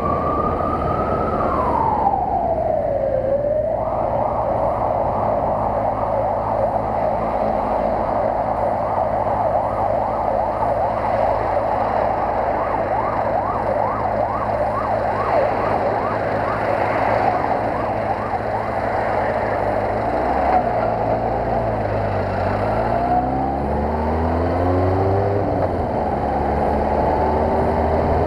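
Emergency-vehicle siren, first a slow wail that rises and falls, then switching to a rapid repeating yelp, over steady motorcycle engine and road noise. Near the end the Kawasaki ZR-7's inline-four engine rises in pitch as the bike accelerates.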